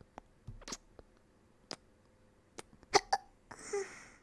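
A woman hiccuping: a series of short, sharp hiccups, the loudest a little before three seconds in and quickly followed by another, then a short breathy sound near the end.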